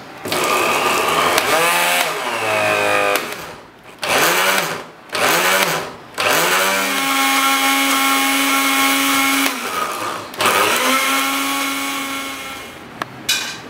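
Small electric grinder with a plastic chopper jar, grinding sliced ginger into a paste in pulses. The motor whines up to speed and cuts out about five times: a first run of about three seconds, two short bursts, a steady run of about three seconds, and a last run that slows down, followed by a couple of brief clicks.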